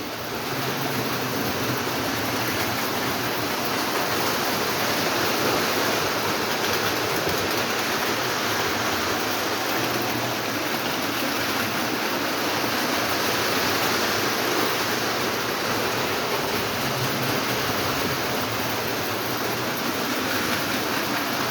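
Lionel O27 electric model trains running on the track: a steady whirring and rumbling of motors and wheels that holds at an even level.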